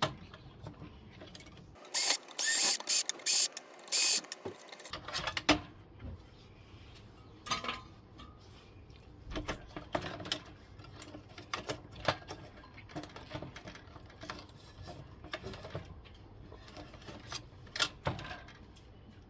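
Tools working on the metal of an industrial air conditioner being dismantled: scattered clicks and clanks, with a run of several loud, sharp rasping bursts about two to four seconds in.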